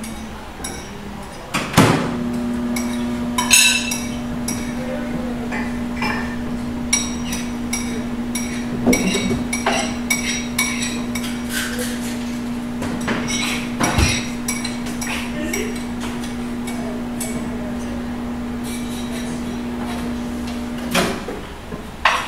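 Countertop microwave oven running with a steady hum that starts with a click about two seconds in and stops with a click about a second before the end. Dishes and utensils clink and knock around it.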